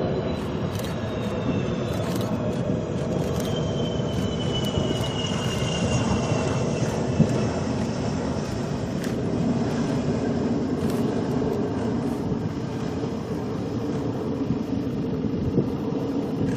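Jet airliner engines on a landing approach, a steady loud rumble with a high engine whine that slowly falls in pitch.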